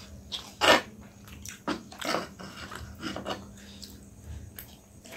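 Close-up eating sounds: instant ramen noodles being slurped and chewed, wet mouth smacks coming in short, irregular snatches, over a faint steady hum.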